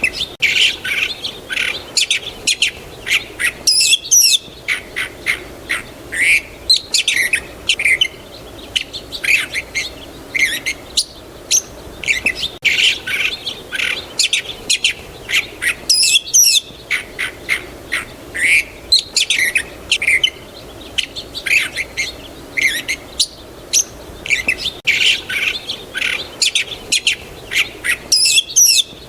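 Songbirds chirping and calling in a dense chorus of short, quick chirps and trills, with the same stretch of song repeating about every twelve seconds.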